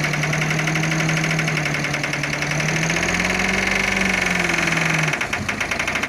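Dump truck's diesel engine running steadily with a fast, even knocking beat while the raised bed tips out its load of sand. Its pitch lifts slightly about three seconds in, then eases back, and the engine note drops away near the end.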